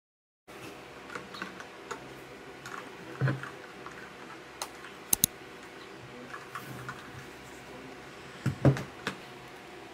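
Scattered light clicks and taps of things being handled on a desk, with a louder knock about three seconds in, two sharp clicks around five seconds, and the loudest knocks near the end.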